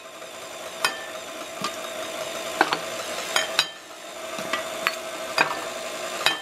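KitchenAid stand mixer running, its beater turning through thick cake batter in a stainless steel bowl: a steady motor hum with sharp clicks and knocks every half second to a second.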